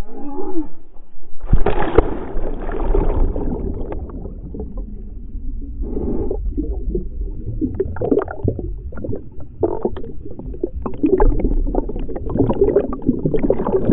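A body plunging into water with a loud splash about a second and a half in, then gurgling and bubbles churning around a GoPro Hero 3 Black action camera that has gone under with the jumper. The slow-motion replay has slowed the audio down, so it sounds deep and dull.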